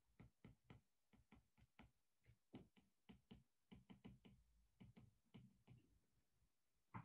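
Faint, irregular clicking of a stylus tip tapping on a tablet's glass screen while handwriting, about three or four clicks a second.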